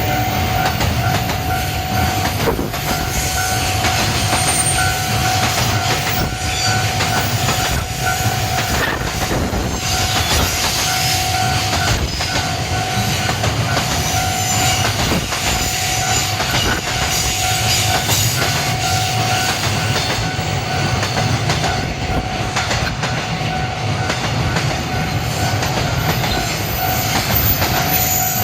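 Freight train's wagons rolling past at a level crossing: a steady rumble of wheels with the rhythmic clickety-clack of wheelsets over rail joints, while the crossing's electronic alarm keeps ringing with a repeating tone.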